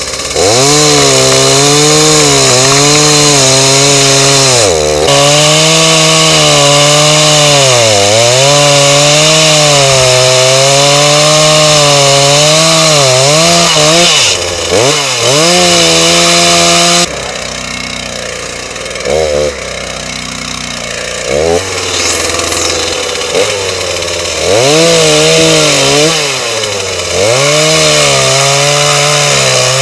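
Gas chainsaw running at full throttle, cutting through a fallen tree trunk; its pitch sags and recovers again and again as the chain bites into the wood. About halfway through it drops back to a lower idle with a few short revs, then revs up and cuts again near the end.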